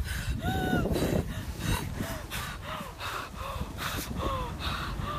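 A woman gasping for breath in quick, labored breaths, about three a second, many with a short voiced moan, as in breathing distress. Wind rumbles on the microphone underneath.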